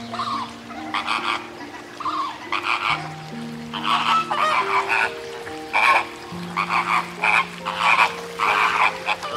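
A flock of flamingos calling: many short, nasal calls in quick, irregular succession, over background music of long held low notes.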